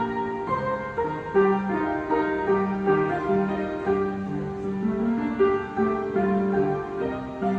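Solo piano playing a slow, gentle melody, notes struck one after another over a sustained bass line.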